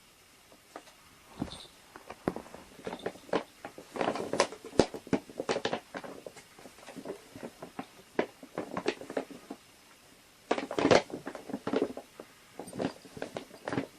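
Irregular taps, knocks and scuffling, with two busy flurries, one about four seconds in and one about eleven seconds in.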